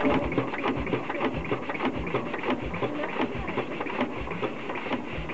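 Old single-cylinder stationary engine running slowly, a low beat about every two-thirds of a second under the clatter of its valve gear.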